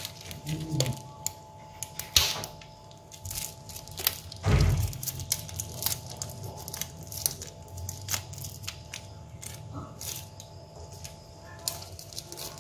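Thin plastic bags crinkling and rustling as they are handled and tied shut, with many scattered sharp crackles.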